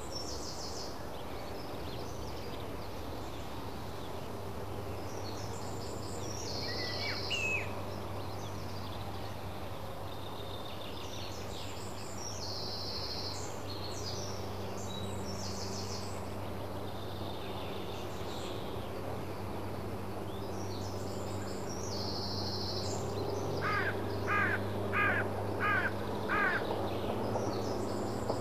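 Birds singing: a short high song repeats about every five seconds, and near the end a run of five rising calls comes at about two a second. A steady low electrical hum runs underneath.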